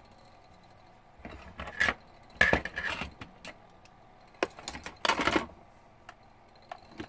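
A laptop's plastic case and small tools being handled on a workbench: clusters of clicks, knocks and rattles, the loudest about two and a half seconds in.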